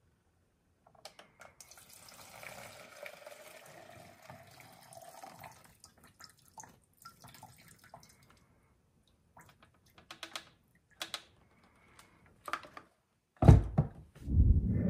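Fuel pouring from a Stihl MS250 chainsaw's tank into a plastic cup, its pitch rising as the cup fills, then scattered drips and clicks. Heavy thumps near the end as the saw is set down on the workbench.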